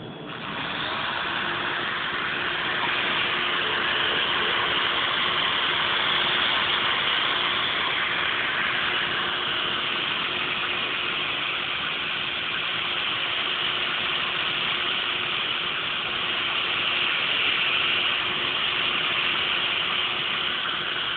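Makita handheld right-angle polisher switched on and spinning its pad against the edge of a stone countertop's sink cutout, a steady grinding hiss with a faint hum, putting an arris edge on the cutout and smoothing out the rough edges.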